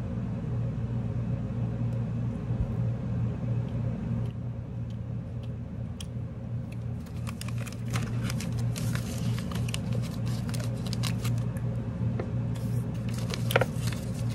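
Steady low hum throughout, with crinkling and rustling of a snack wrapper being handled, in quick clicks and crackles from about six seconds in.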